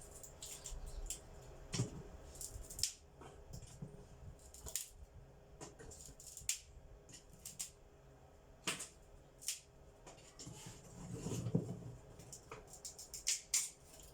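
Irregular clicks, taps and light knocks of objects being handled, with a longer low rubbing sound a little past the middle.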